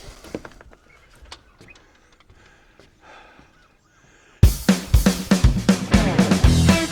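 Faint scattered clicks and knocks, then band music with a drum kit starting suddenly and loudly about four seconds in.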